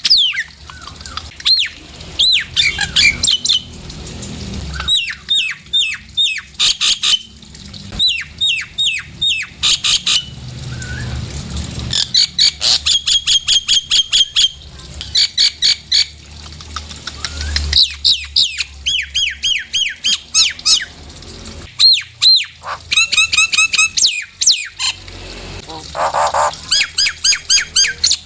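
Nias hill myna calling: runs of loud, sharp whistles that slide downward in pitch, each run several quick notes long with short pauses between, and a harsher, lower call near the end.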